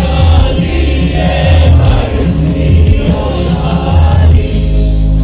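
Live band music played loud through a concert PA, with heavy pulsing bass and singing.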